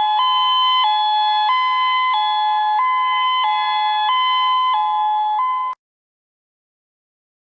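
Emergency alert attention tone: an electronic alarm alternating between two pitches about every two-thirds of a second. It cuts off abruptly about six seconds in.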